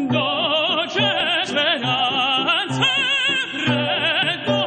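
Opera recording: a voice sings high, sustained notes with wide vibrato over orchestral accompaniment.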